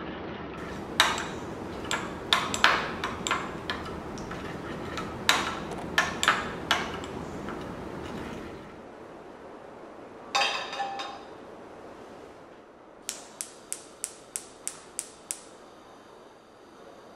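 Kitchen work: utensils and dishes knocking and clinking over a steady hiss, a clatter with a brief ring about two-thirds of the way in, then a run of about nine quick, even taps.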